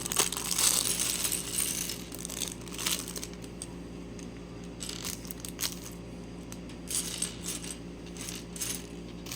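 A plastic bag of LEGO pieces crinkling for the first couple of seconds, then small plastic bricks clicking and clattering onto a surface in scattered taps.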